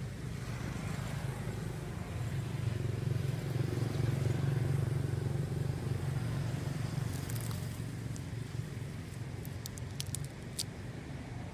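Low engine rumble of a motor vehicle, swelling for a few seconds and then easing off, with a few sharp clicks near the end.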